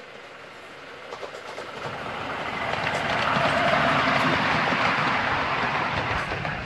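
Miniature railway train passing close by. Its running noise builds from about a second in, is loudest about halfway through, then fades away near the end.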